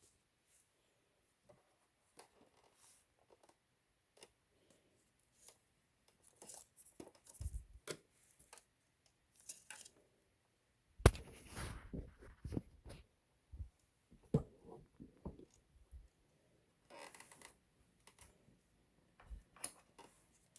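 Scattered small clicks, rustles and knocks of hands working on the opened sewing machine's internal wiring and plastic parts, with one sharp knock about halfway through followed by a brief scraping rattle.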